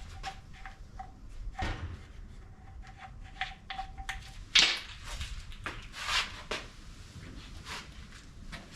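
Scattered knocks and clicks of tools and parts being handled during engine work, the loudest knock about four and a half seconds in. A faint steady high tone comes and goes in the first half.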